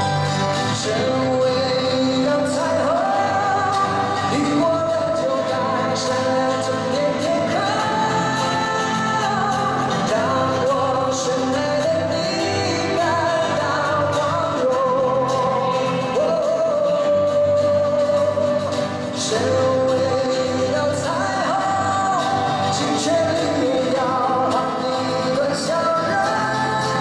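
Live band playing, with male voices singing a held, gliding melody over acoustic and electric guitars and drums.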